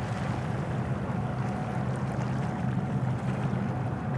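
Steady low drone of a ship's or boat's engine over the noise of water and light wind.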